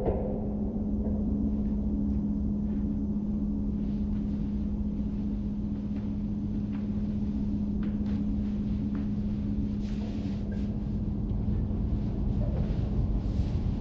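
Dark ambient drone music: a low rumble under a steady held tone that fades out about ten seconds in, with faint scattered clicks above it.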